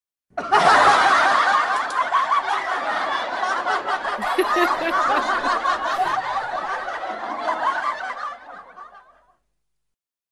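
Laughter sound effect: a group of people snickering and laughing together, starting suddenly and fading out near the end.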